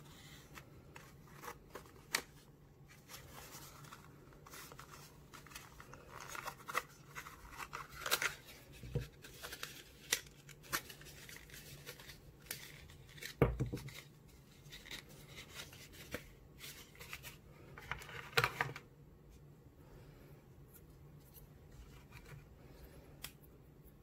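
Handling noise from a Zippo arc lighter insert and its box: scattered small clicks, taps and rubbing of the metal insert against the cardboard box and its foam tray. The loudest is a heavier knock about halfway through, with another cluster of rustling a little later. It goes quieter near the end.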